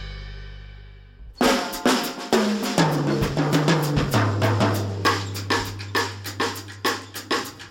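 Soundtrack music: a held chord fades away, then about a second and a half in a drum kit starts a busy beat over a bass line.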